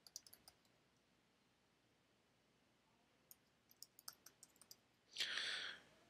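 Faint computer keyboard typing: a quick run of keystrokes at the start and another from about three to five seconds in, then a brief breathy hiss near the end.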